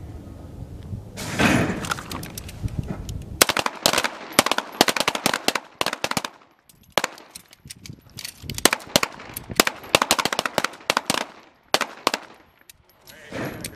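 Pistols fired by a line of shooters on an outdoor range, with many shots in quick, overlapping succession. The shots begin a few seconds in, pause briefly midway and stop near the end. A short rush of noise about a second in comes before the first shots.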